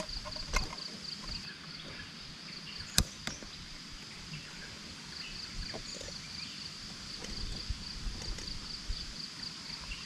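Insects chirping steadily outdoors in a high, pulsing tone, with a few light clicks and one sharp click about three seconds in as a moka pot is handled on a small camping gas stove.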